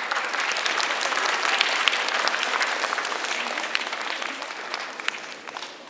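A large audience of students clapping, fading away near the end.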